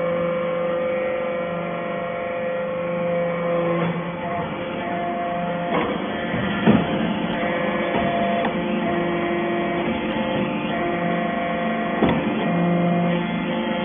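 Hydraulic metal-shaving baler running with a steady hum, and a few sharp clunks near the middle and near the end.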